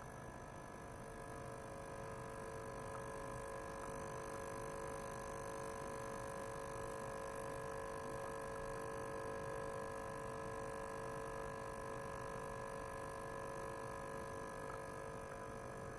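42 kHz ultrasonic cleaner running with a glass bottle of water standing in its bath: a steady hum of several held tones over a faint hiss, growing a little louder a few seconds in.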